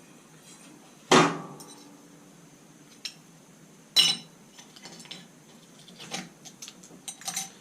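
Hard metal parts clinking and being set down on a hard surface: a sharp clink with a short ring about a second in, another about four seconds in, then a scatter of lighter clicks and taps.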